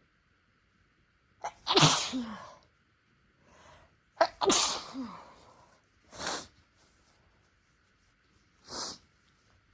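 A person sneezing twice in quick succession, about 1.5 and 4 seconds in, each a big voiced sneeze with a sharp catch of breath at the start, set off by deliberately tickling the nose. Two short, quieter puffs of breath follow.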